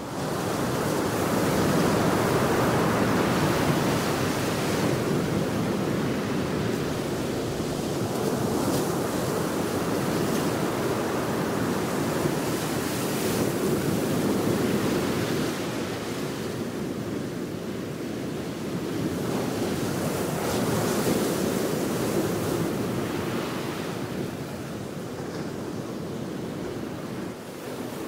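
Outdoor rush of coastal wind and surf, a steady noise that swells and eases every several seconds.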